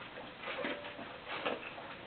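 Dogs and a cat eating together, with irregular wet chewing and smacking sounds about two or three a second.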